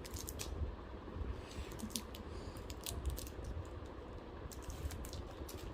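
Irregular crinkling clicks of a chocolate bar's plastic wrapper being handled and torn open.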